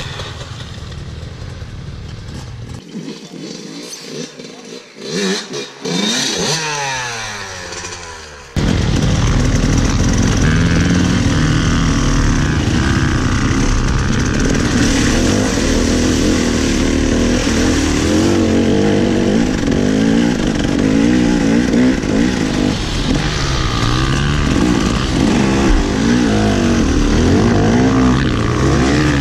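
Dirt bike engines revving and running off-road. For the first third the sound is quieter, with engine pitch rising and falling. Then, after a sudden jump in level, a dirt bike engine runs loud and close, its revs wavering up and down continuously as it is ridden.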